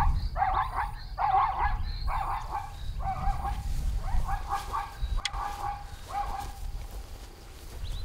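Plains zebra barking: a run of about nine short, repeated bark calls, a little over one a second, that stop about six and a half seconds in.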